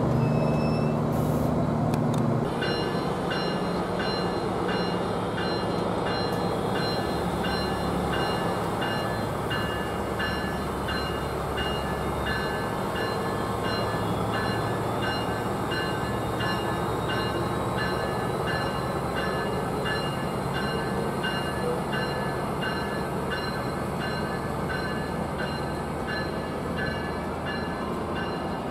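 A train at a station, with a bell ringing in steady, evenly spaced strokes over the noise of the train. A loud low rumble at the start dies down after about two seconds.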